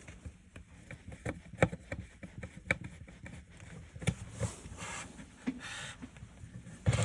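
Irregular small clicks and taps of a plastic car light-control switch panel being handled and unscrewed with a small screwdriver, with a short stretch of scraping about four to six seconds in.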